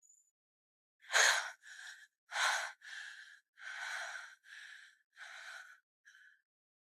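A person breathing hard and unevenly, seven or eight breaths over about five seconds, loud and soft breaths in turn.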